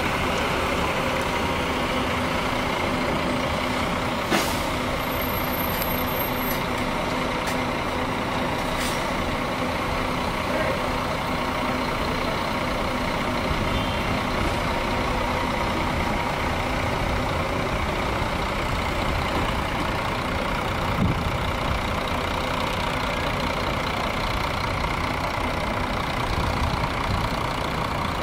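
Large diesel coach engine running at low speed as the bus manoeuvres around a terminal lot, with two short sharp hisses of air about four and nine seconds in.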